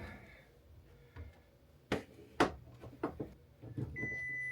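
A few sharp knocks and clicks from the microwave convection oven being screwed back into its cabinet mounting, then a steady high-pitched electronic beep lasting about a second near the end.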